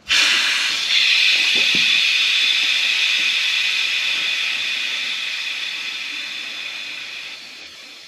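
Nitrogen rushing out of a pressurized copper line set at the air handler: a loud hiss that starts suddenly and slowly fades as the test pressure bleeds off.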